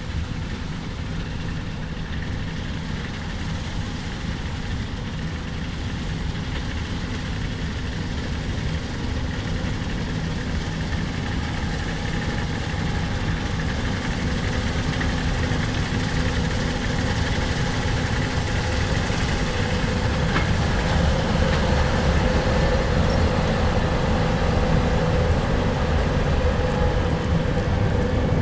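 Combine harvester running steadily while harvesting soybeans, a deep engine drone with machinery noise above it, growing gradually louder.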